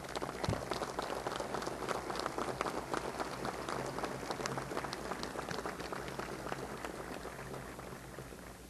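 Audience applauding, a dense patter of many hands clapping that slowly dies away toward the end.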